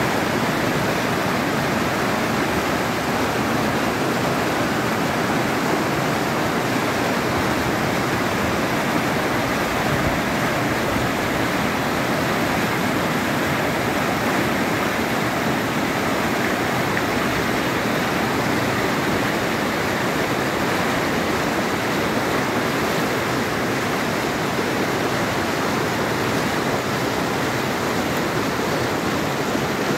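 Swollen brown floodwater rushing through turbulent rapids: a steady, loud rush of water that does not let up.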